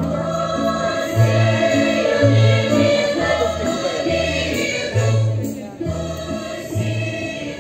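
Music with a choir singing over instrumental backing, and a bass note pulsing about once a second.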